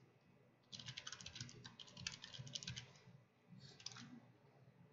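Faint, rapid keystrokes on a computer keyboard as a password is typed. A quick run of clicks starts about a second in, then a few more strokes follow near the end.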